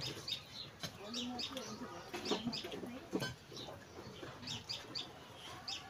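Small birds chirping again and again in short high notes, in quick pairs and runs, with chickens clucking in lower wavering calls. A couple of sharp clicks come about halfway through.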